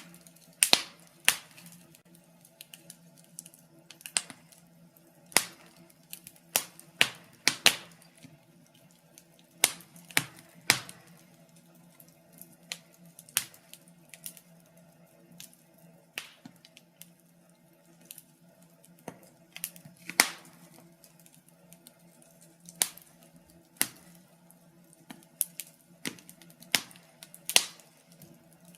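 Wood fire in a fireplace crackling, with irregular sharp pops and snaps, some of them loud, over a faint steady hum.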